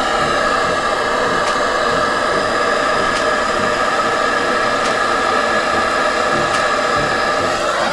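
Handheld propane torch burning with a steady hiss, its flame played on a rusted brake caliper to heat it.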